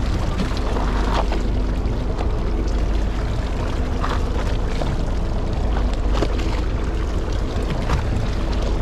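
Steady rumble aboard a small fishing boat at sea: the boat's engine running with a faint hum, water washing along the hull, and a few light clicks.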